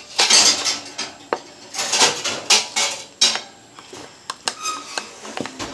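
Spoon stirring pancake batter in a glass bowl, scraping and clinking against the glass in uneven strokes.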